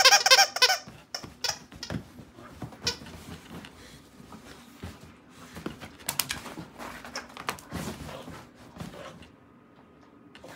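A dog's excited, high-pitched, wavering yelps in quick succession, which stop about a second in. Then come scattered rustles and soft thumps as the dog moves about on bedding.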